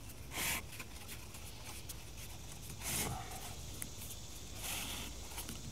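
Corrugated cardboard being rolled tightly by hand, making three brief, faint scraping rustles.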